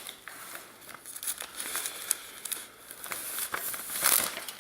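Rustling and crinkling handling noise close to the microphone, with scattered light clicks; it swells to its loudest about four seconds in.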